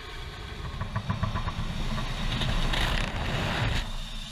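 Steady rush of wind and engine noise inside a cargo plane's hold with the rear ramp open during an airdrop, with a short run of rattling clicks about a second in.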